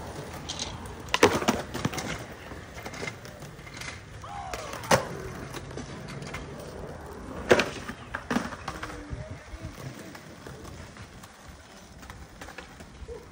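Skateboard on concrete: wheels rolling, with several sharp clacks of the board striking the ground, the loudest about a second in, at about five seconds and at about seven and a half seconds.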